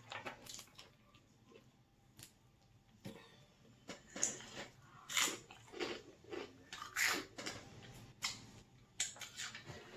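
Close-miked chewing and wet mouth sounds of someone eating, a string of irregular soft clicks and smacks that starts about three seconds in after a nearly quiet start.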